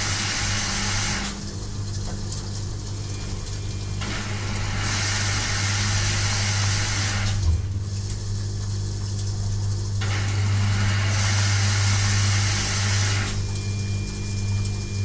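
Washing machine running with a steady low hum. A loud hissing rush comes and goes in spells of two to three seconds: one at the start, one about five seconds in and one about eleven seconds in.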